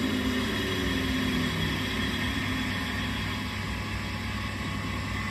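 Sun 504 distributor tester running steadily, its drive motor spinning a Lucas distributor at constant speed with a continuous mechanical hum.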